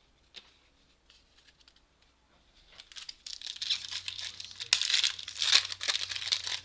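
Foil trading-card pack wrapper being torn open and crinkled by hand. It starts after a couple of quiet seconds and runs as dense crackling, loudest in two sharp rips about five seconds in.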